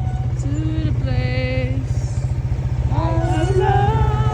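A person singing long held notes over the steady low rumble of a motorbike being ridden.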